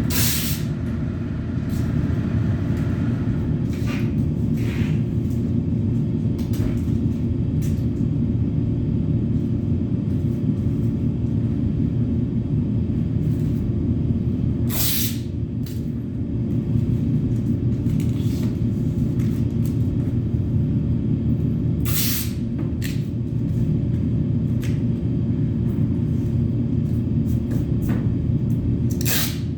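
Air compressor running with a steady low rumble, with four short hisses of released air over it, typical of a spray gun being triggered while priming.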